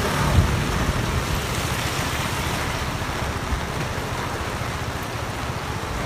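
Heavy storm rain pouring onto a wet street, a steady hiss with a low rumble underneath.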